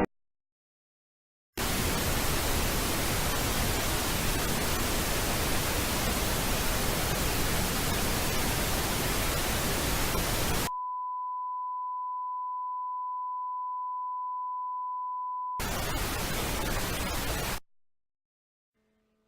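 Television-style white-noise static hiss for about nine seconds. It cuts straight to a steady pure 1 kHz test tone held for about five seconds, then a short burst of static that stops abruptly.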